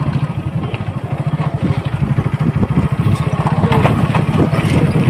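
An engine idling steadily, with a fast, even chugging pulse.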